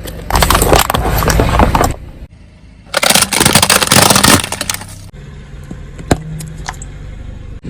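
Brittle objects being crushed under a car's tyre: two loud stretches of crunching, cracking and breaking, each a second and a half to two seconds long, then a few faint single cracks near the end.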